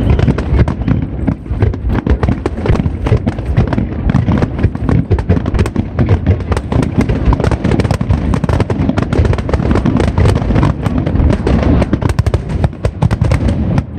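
Aerial fireworks going off in a dense, continuous barrage: many overlapping booms, bangs and crackles follow each other several times a second.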